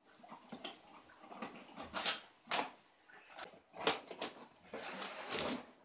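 Packing tape on a cardboard box being slit and scraped open with a blade, in a string of short, scratchy strokes.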